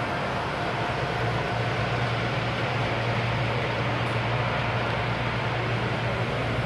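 O-scale model passenger train of the Baltimore & Ohio Columbian rolling past on two-rail track: a steady low hum with rail noise, which grows stronger about a second and a half in.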